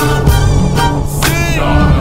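Background music: a violin-led hip-hop/R&B instrumental with a steady beat, one note bending up and back down about one and a half seconds in.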